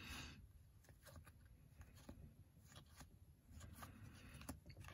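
Faint, soft clicks and slides of baseball cards being flipped through by hand, one card at a time, with a brief rustle at the start.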